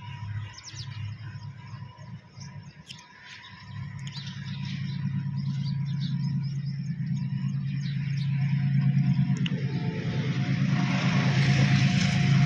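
An engine running low and steady, getting louder from about four seconds in, with birds chirping now and then.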